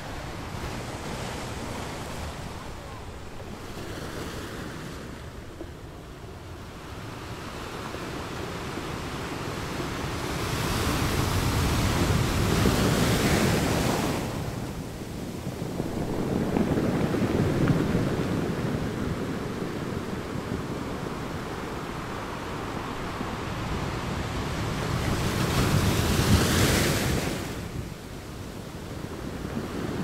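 Ocean surf: waves breaking and washing in an unbroken rush that rises and falls. Three bigger waves swell and break, the first about ten seconds in and the loudest near the end, each falling away fairly quickly.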